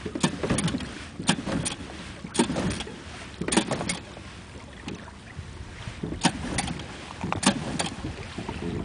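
Small outboard motor being pull-started over and over without catching: about six short, sharp rattles of the recoil starter, mostly in pairs, with a pause in the middle, over wind noise.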